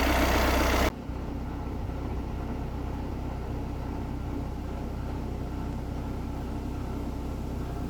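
A vehicle engine running steadily. About a second in the sound drops suddenly to a quieter, even drone.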